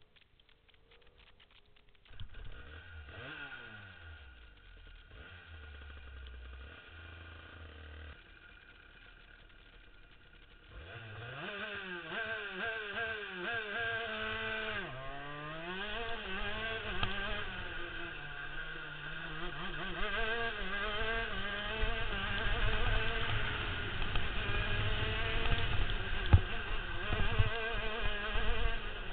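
Two-stroke 125cc shifter kart engine close to the microphone. It starts running about two seconds in and runs steadily at a moderate level. From about a third of the way through it gets louder and revs up and down again and again as the kart accelerates and brakes between the cones.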